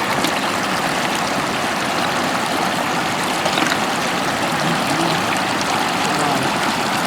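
Floodwater running steadily over a road, a constant rushing wash of water.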